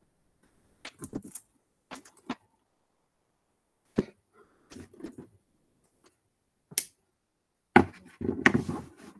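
Scattered clicks and knocks of materials and tools being handled on a craft workbench, with a busier stretch of handling noise about eight seconds in.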